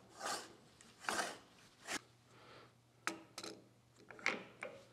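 3D-printed PLA spindle nose protector being screwed by hand onto the lathe's threaded L00 spindle nose: three rasping turns a little under a second apart. Then a few sharp clicks and short knocks as a magnetic dial-indicator base is handled and set on the lathe.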